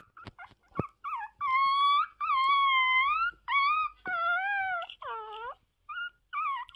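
Young white puppy howling: a string of high, thin howls, each about half a second to a second long, rising and falling in pitch, with one dipping lower about five seconds in and shorter yelps near the end.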